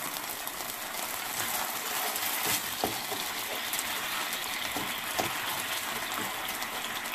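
Thin curry sauce sizzling steadily in a nonstick frying pan while a spoon stirs it, with a few light scrapes and taps of the spoon against the pan.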